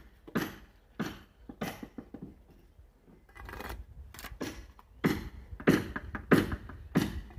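Steel mason's trowel scraping mortar from a bucket and onto hollow ceramic bricks, in a run of short scrapes and knocks, with a softer stretch of scraping about three seconds in.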